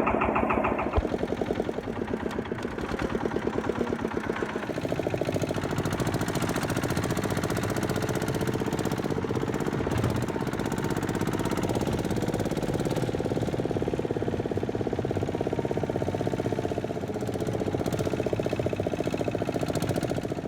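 Engine of an old hand-crank-started Lister dumper truck running with a steady, even beat.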